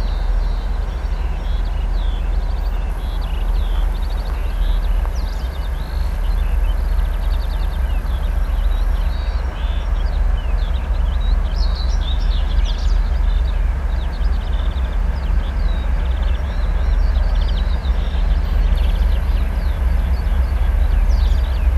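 2M62 twin-section diesel locomotive's two-stroke V12 diesel engines rumbling as it approaches at the head of a loaded freight train, getting slightly louder. Birds chirp throughout.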